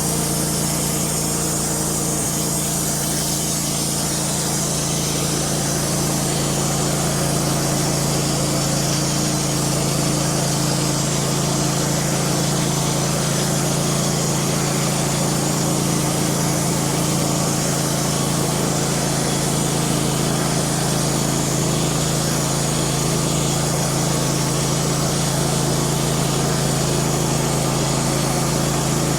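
Wood-Mizer LT15 band sawmill running steadily, its engine held at a constant speed while the band blade saws along a white pine log.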